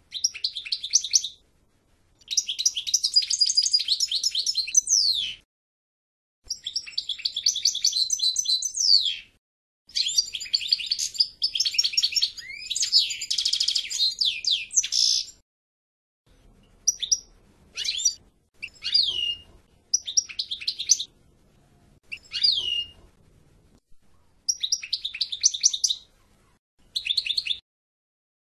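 European goldfinch singing: bright, rapid twittering song phrases with trills and quick pitch glides, delivered in bouts of a few seconds with short pauses between. The bouts are longer in the first half and become shorter phrases later, several ending in a sharp downward-sliding note.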